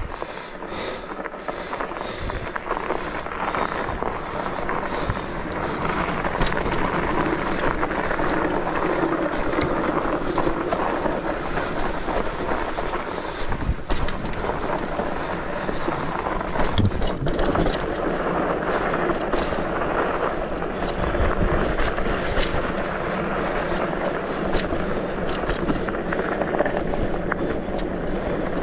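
Ride noise from a rigid-fork fat bike rolling along a snowy trail: a steady rushing noise from the tyres and the moving bike, with scattered knocks and rattles as it goes over bumps.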